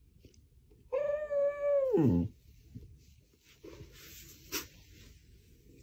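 Samoyed giving one drawn-out whining 'talking' call about a second in, holding its pitch for about a second and then dropping steeply as it ends. Later, faint rustling and a brief sharp sound as the dog pushes its nose in to boop the person.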